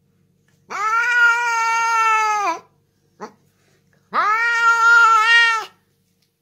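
Scottish Fold cat giving two long, drawn-out meows of about two seconds each, with a short chirp between them. Each call holds its pitch and drops at the end.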